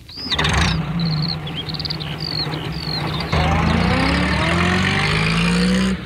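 Small van engine starting up and running, then pulling away about three seconds in, its note rising as it accelerates before cutting off. Birds chirp above the engine in the first half.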